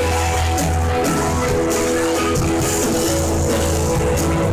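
Live rock band playing: electric guitar over sustained bass notes and a drum kit with steady cymbal strokes.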